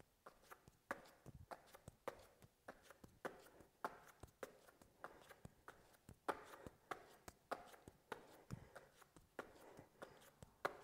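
Faint, quick pats of hands tapping the opposite shoulders and landing back on a rubber exercise mat during plank shoulder taps, in an uneven run of several a second.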